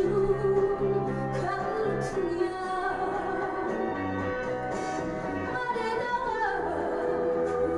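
A vinyl record playing a Korean song on a turntable, with a woman singing over the accompaniment.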